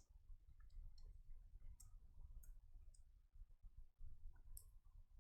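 Near silence: a faint low hum with a few soft, short clicks.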